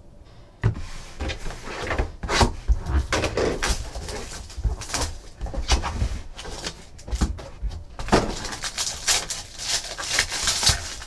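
Hands tearing into and crinkling a foil trading-card pack, mixed with the clicks and knocks of a cardboard card box being opened and cards being handled. The foil crinkling is densest about eight seconds in.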